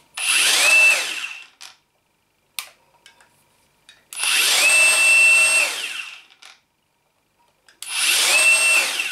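Meec Multiseries 18 V cordless brushless angle grinder, run three times with no disc fitted. Each time it spins up with a quick rising whine, holds a steady high whine for a second or two, then winds down. The run in the middle is the longest. It sounds rather bad to the owner's ear.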